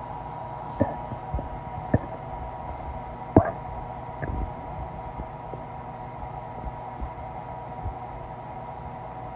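Empty stomach growling from hunger: a few short gurgling pops, the loudest about three and a half seconds in, with a brief rumble just after, over a steady hum.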